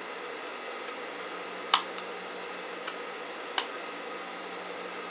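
Scissors snipping into the corner of a welt pocket piece to clip it at an angle: two sharp clicks about two seconds apart, with a fainter one between them, over a steady low hum.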